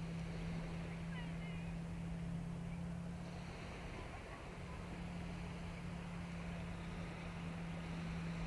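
Motorboat engine out on a lake, droning steadily at one low pitch. There are a few faint high chirps about a second in.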